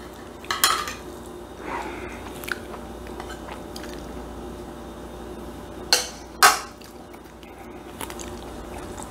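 Metal serving spatula clinking against a stainless steel pan and a ceramic plate as food is scooped out: a sharp clink less than a second in and two more around six seconds in, with lighter taps between. Soft chewing near the end.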